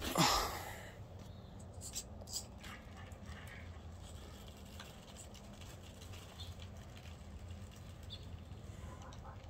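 A brief rustle at the start, then the faint low hum and scattered clicks of an RC rock crawler's brushless drivetrain creeping across concrete and climbing a wall.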